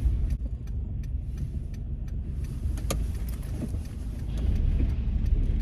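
Pickup truck driving, heard from inside the cab as a steady low rumble with a few scattered light clicks. The truck is in two-wheel drive and rolling through a right turn.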